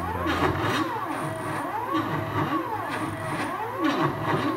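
Stepper motors driving the X and Y axes of a DIY CNC mill under G-code, whining in overlapping tones that rise and fall in pitch about once a second as the axes speed up and slow down, over a steady low hum from the running spindle. It is noisy, which the builder puts down to loose connections and screws still to be tightened.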